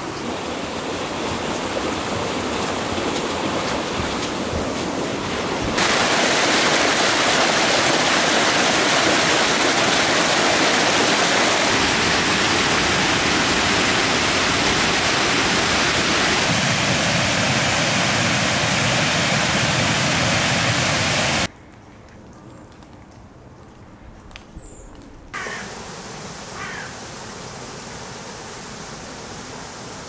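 Fast-flowing water: a swollen stream rushing beneath a footbridge, then louder churning white water, the sound stepping abruptly between shots. About two-thirds of the way through it drops suddenly to a much quieter background hush with a few faint short chirps.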